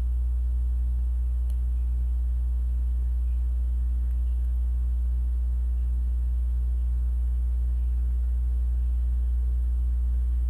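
Steady low electrical hum, a constant drone that does not change.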